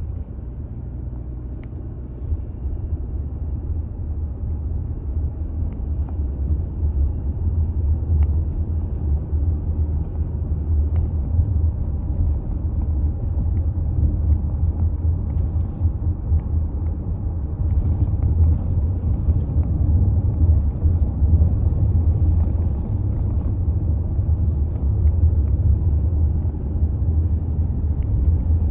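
Low, steady road and drive rumble of a Toyota Alphard hybrid minivan on the move, slowly growing louder.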